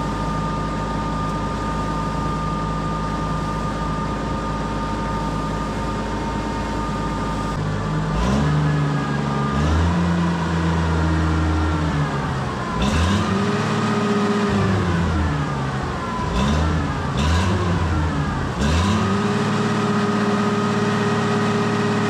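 Oliver 1650 tractor engine running at a steady idle, then, about eight seconds in, revved up and down several times before holding at a higher steady speed for the last few seconds. It is being run on test to see whether coolant is still getting into the oil.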